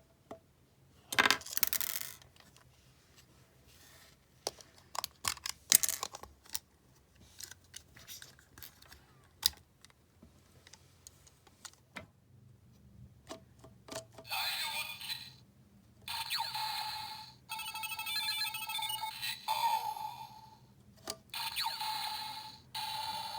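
Plastic clicks and taps from a Zi-O Ridewatch toy being handled. About fourteen seconds in, the toy's electronic sound effects start playing from its small speaker in four or five separate stretches.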